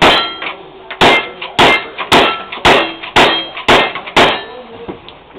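Rifle fired in a rapid string, eight shots about two per second, each shot followed by the ringing clang of a hit steel plate target. The string stops a little after four seconds in.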